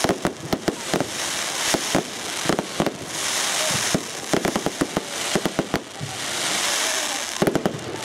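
Aerial fireworks going off: clusters of rapid, crackling pops, with stretches of hiss between them.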